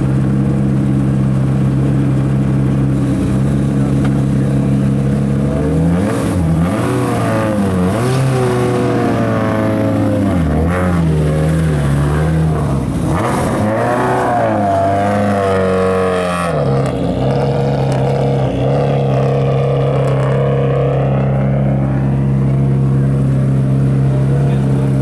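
2015 Subaru WRX STI rally car's turbocharged flat-four engine idling steadily. It is revved up and down several times through the middle, then settles back to idle.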